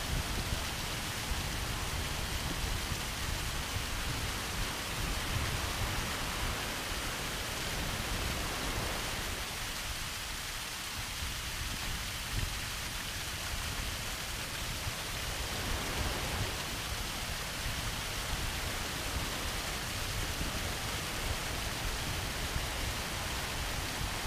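Steady rushing water of surf washing up a sandy beach, mixed with small waterfalls spilling down the cliffs, over a low rumble. The rush eases for a few seconds about ten seconds in, then returns.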